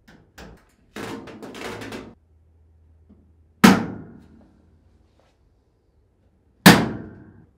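Whirlpool dryer's sheet-metal top panel being closed: light handling noise, then two loud, sharp snaps about three seconds apart as each side is pressed down onto its retaining clips.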